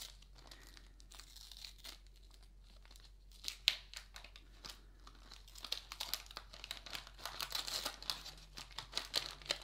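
Waxed paper wrapper of a 1982 Topps baseball card wax pack being peeled and torn open by hand: crinkling and crackling, sparse at first with one sharp crackle, then busier from about halfway.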